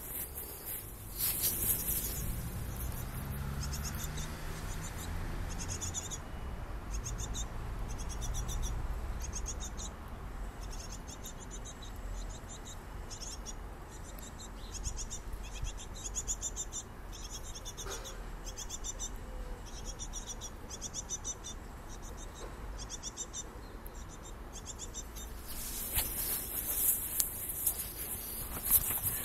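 Tit nestlings in a nest box calling: high-pitched, buzzy chirps repeated many times a second, coming in runs with short gaps between them. A louder hiss sits at the very start and again near the end.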